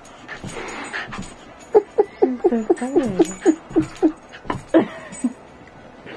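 Terrier whining and yipping in a quick run of about a dozen short, high, wavering calls, about four a second, then a few more near the end, with light knocks among them.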